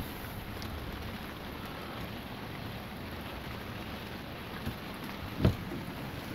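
Steady rain falling during a thunderstorm. A single short knock comes about five and a half seconds in.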